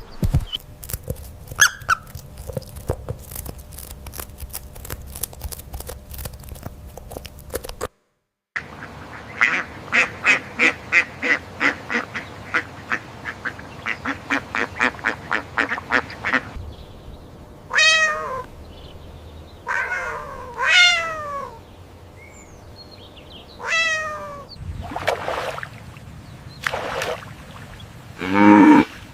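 A run of animal calls, one clip after another. First comes a series of rapid quacks, about two to three a second, likely from a duck. Then come several separate falling meows, likely from a cat.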